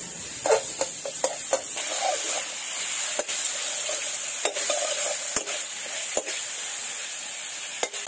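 Pork pieces sizzling in their own rendered fat in a blackened kadai, with a steady hiss, while a metal spoon stirs them and clicks and scrapes against the pan every second or so.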